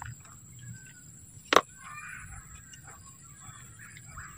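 Potting soil being handled with a plastic trowel and pressed in by hand, mostly quiet. One sharp knock about a second and a half in, as the trowel meets the soil bucket.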